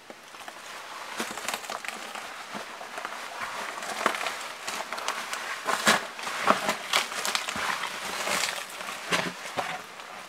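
Footsteps crunching and scraping over loose stones and grit on a concrete floor, irregular steps starting about a second in.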